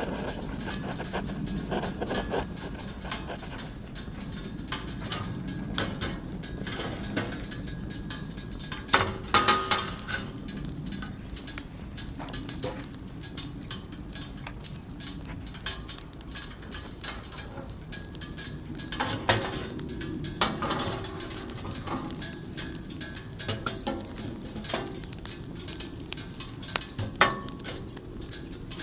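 Metal utensils clinking against cookware during campfire cooking. There are three short clusters of clinks with a brief metallic ring, spread through the stretch, over a steady low background noise.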